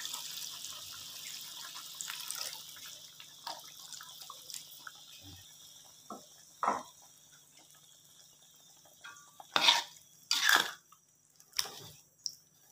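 Water poured into a wok of shrimp curry, a splashing pour that fades out over the first three seconds or so. Then scattered light knocks, and three louder short clatters of the spatula against the wok in the last few seconds.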